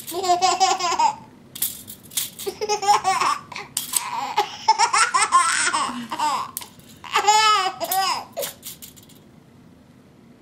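A baby laughing in three spells of high giggles and belly laughs, set off by a tape measure blade being pulled out and let go. Sharp clicks and rattles of the tape measure come between the laughs and just after the last one.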